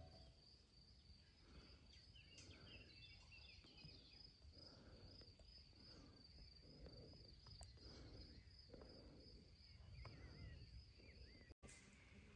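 Faint woodland ambience: a high, steady, pulsing insect trill, with a few short bird chirps about two seconds in and again near the end. The trill cuts off abruptly shortly before the end.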